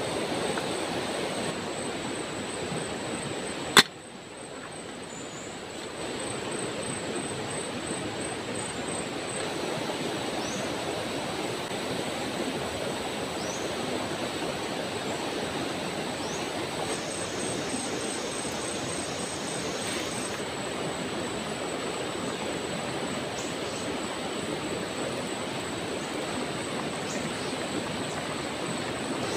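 Steady rushing of a flowing river, with one sharp click about four seconds in.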